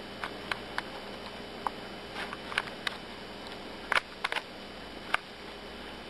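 About a dozen short, sharp clicks and taps at irregular intervals, the loudest about four seconds in.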